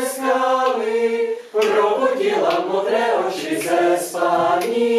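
Mixed choir singing a cappella: held chords that move step by step in pitch, with a short break about a second and a half in and a brief dip about four seconds in.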